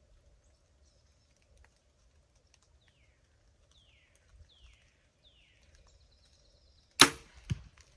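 A compound bow is shot off a hinge release, with one loud sharp crack of the string and limbs near the end. About half a second later comes a second, smaller crack, the arrow striking the target. Before the shot a bird gives four short downward-sliding chirps.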